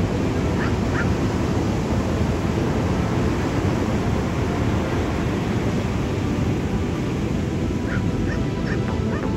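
Big surf breaking on a beach: a steady, dense noise of crashing whitewater. A few short bird calls cut through, twice about half a second in and several more near the end.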